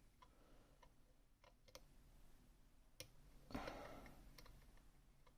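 Faint, scattered small clicks of a lock pick and tension wrench working inside an ASSA Twin 6000 lock cylinder, with a brief soft rustle about three and a half seconds in.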